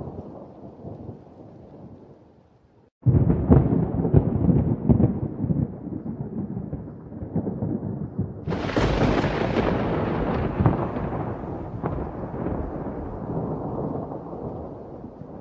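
Thunder rumbling, with a loud clap breaking in about three seconds in and a second, sharper crack at about eight and a half seconds, each rolling away slowly.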